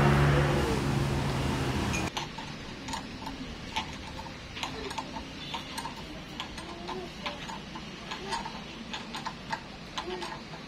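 A steady low machine hum for about two seconds that cuts off suddenly, followed by a hand wrench ticking and clinking in short irregular runs as it turns the screw of a hose clamp on a ribbed hose.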